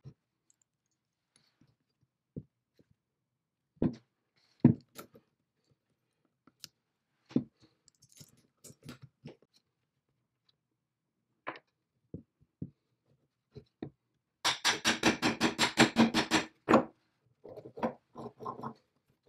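Metal parts of a cast-iron swing saw arbor assembly being handled on a wooden bench: scattered clunks and taps, then a rapid, even run of about a dozen clicks lasting about two seconds, followed by a few more knocks.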